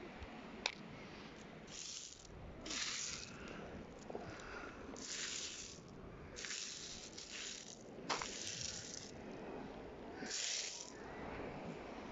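Beach pebbles clattering and rattling against each other as a hand sweeps and sifts through the shingle, in several short strokes with a sharp stone-on-stone click near the start.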